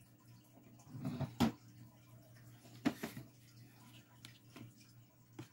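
A few short clicks and taps of small objects being handled on a desk, loudest about a second in and again around three seconds, over a steady low hum.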